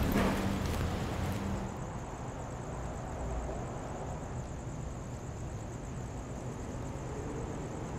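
Steady outdoor street background at night: an even low hum and hiss, with a few light clicks and a brief low tone in the first couple of seconds.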